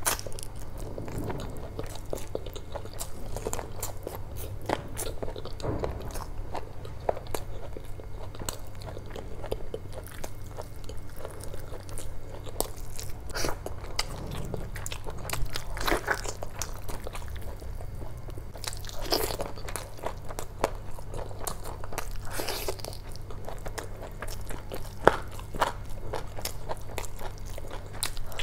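Close-miked eating: wet chewing and biting into spicy chicken curry with rice, with a constant patter of mouth clicks and smacks and a few louder bites.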